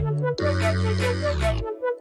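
Electronic background music: a repeating synth melody over a heavy bass line that slides down in pitch and drops out near the end.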